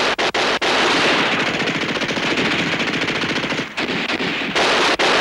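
Automatic machine-gun fire. It opens with distinct shots about five a second, then runs into a faster, denser stream of fire, with a brief lull about three-quarters of the way through before it resumes.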